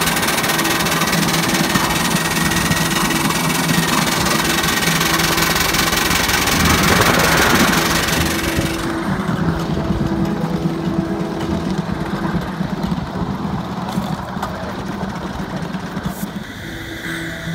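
Ride-on miniature live-steam train, a pair of Little Engines Mogul locomotives, running along the track: a steady mechanical running noise with a strong hiss. About nine seconds in the hiss drops away abruptly and a lower running sound carries on.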